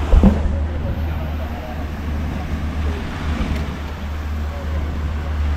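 Outboard motors of a catamaran fishing boat running with a steady low drone, and a thump about a quarter second in.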